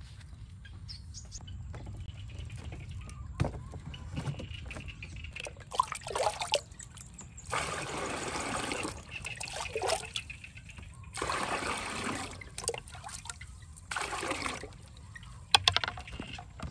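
Water scooped with a plastic dipper from a large earthenware jar and poured out, in four separate pours of a second or so each, the longest lasting about one and a half seconds. A few sharp clacks come near the end.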